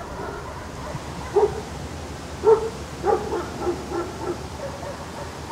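A dog barking in short, high yips: two single barks about a second and a half and two and a half seconds in, then a quick run of softer ones.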